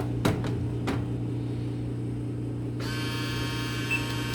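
Vending machine with a steady low electrical hum and a couple of clicks, then about three seconds in a high electronic whine starts abruptly, with short beeps near the end, as the machine is switched back on after a reset.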